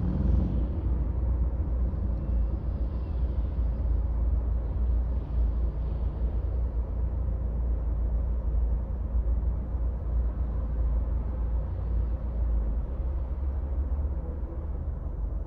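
A car being driven through city streets: a steady low rumble of engine and road noise, easing slightly near the end.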